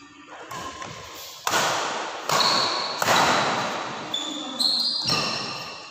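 Badminton racquets hitting a shuttlecock back and forth in a rally: about five sharp hits, each ringing on in the echo of a large hall. Short high squeaks of shoes on the court floor come between the hits.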